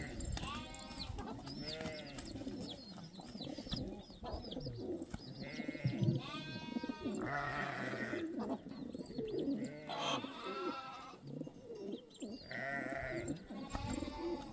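Sheep and goats bleating, many calls overlapping one after another throughout.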